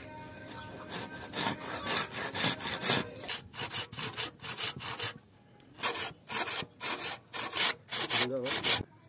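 Hand saw cutting through a small wooden block in quick back-and-forth rasping strokes, about three a second, with a short pause around the middle and stopping suddenly near the end.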